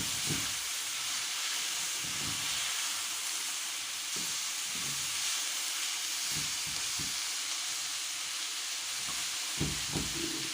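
Squash, parsley and spices sizzling in oil in a cooking pot with a steady hiss, and a few soft knocks as the mixture is stirred.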